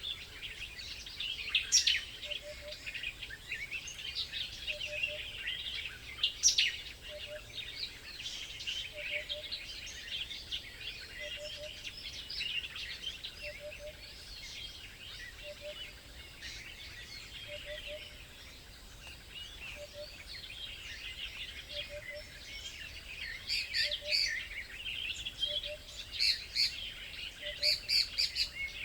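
A busy chorus of small birds chirping and twittering at once, louder in spells near the start and again near the end, with a soft low double note repeating about every second and a half underneath.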